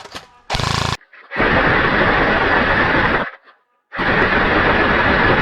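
An airsoft gun fires a short full-auto burst about half a second in. Two longer bursts of harsh, hissing noise follow, each about two seconds long and each stopping sharply.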